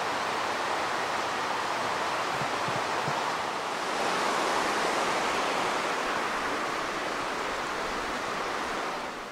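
Shallow river rushing steadily over a stony bed.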